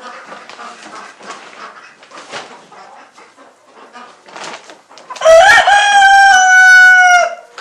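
A rooster crowing once, loud and close, about five seconds in: a single crow of about two seconds that rises at the start and then holds, dropping slightly as it ends. Before it, only a few faint rustles and scrapes.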